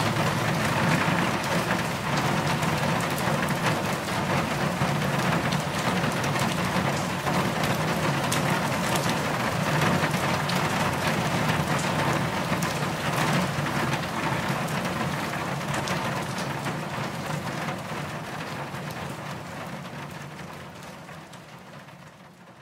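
Steady rain, with single drops striking sharply, fading away over the last few seconds.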